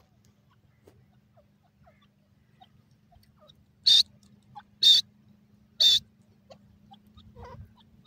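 Grey francolin giving three short, loud, high-pitched call notes about a second apart, a few seconds in.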